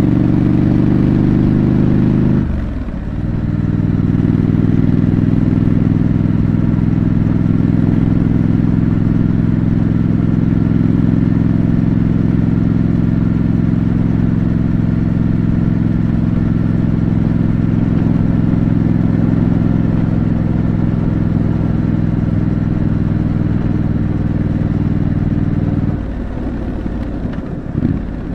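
2025 Triumph Scrambler 900's parallel-twin engine on its stock exhaust, pulling steadily at a constant note while being ridden. The note dips briefly about three seconds in and falls away again near the end.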